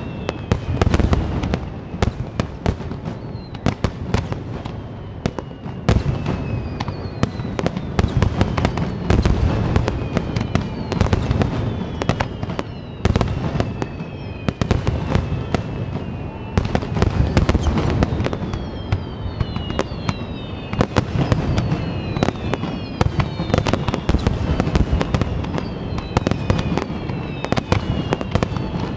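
Large fireworks display: shells bursting one after another in a continuous barrage with a deep rumble. Many whistles fall in pitch over the bangs, several at once.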